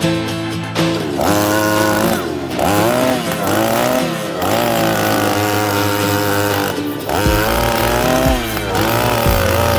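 Small two-stroke engine of an Okasu wheeled earth auger running hard as the auger bores into very hard soil. Its pitch repeatedly dips and climbs back every second or two as the bit loads up and frees itself.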